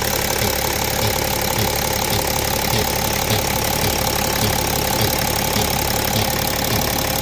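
A BMW X5 E70 running with a steady hum and a strange, cyclic low pulsing that repeats about twice a second. The owner cannot identify the noise.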